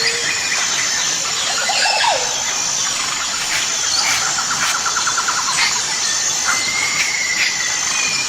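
Tropical forest ambience: a steady, high-pitched insect drone under a chorus of birds calling. There are scattered whistled notes, a downward-sliding call about two seconds in and a fast, rattling trill in the middle.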